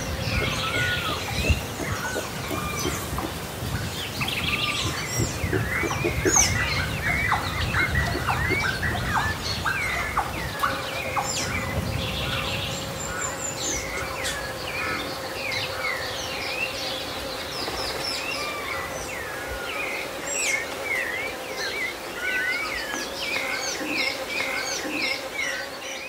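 Many birds chirping and calling at once over a steady insect drone. A low rumble of distant thunder fills the first half and fades away about halfway through.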